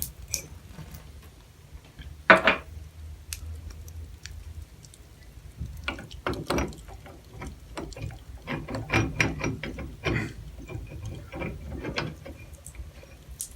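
Metal clicks and clinks of a bathtub faucet cartridge being fitted back into the valve and tightened with a tool, with one louder knock about two seconds in and runs of quick clicks in the second half.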